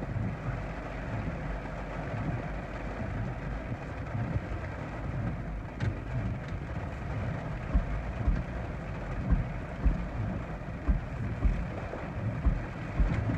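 Heavy thunderstorm rain and gusting wind against a car, heard from inside the cabin as a steady rushing hiss. Short low thumps of wind buffeting come every second or so in the second half.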